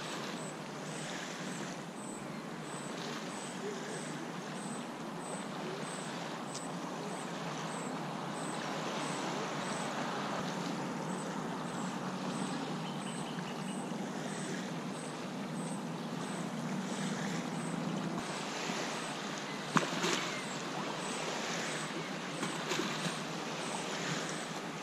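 Small lake waves lapping steadily on a sandy beach. A low hum swells in the middle, and there is a sharp click about twenty seconds in.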